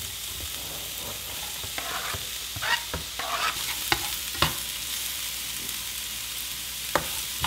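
Diced onion sizzling in hot olive oil in a nonstick frying pan as it is tipped in and stirred with a slotted spatula. There is a steady hiss, with a few sharp taps and scrapes of the spatula against the pan between about two and four and a half seconds in and once more near the end.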